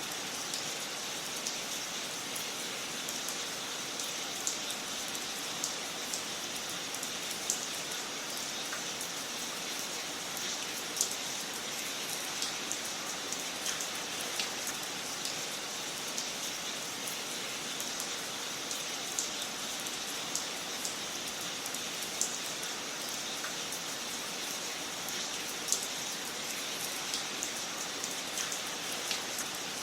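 Wood fire crackling in a fireplace: a steady hiss with frequent small pops and snaps scattered irregularly, a few of them sharper and louder.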